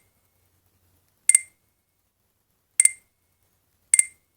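Alcatel OT-810 mobile phone's keypad tones: three short, high beeps, about a second or a second and a half apart, as its keys are pressed to move through the menus.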